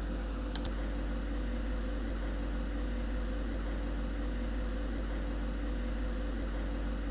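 Steady background hum and hiss, with a faint click about half a second in.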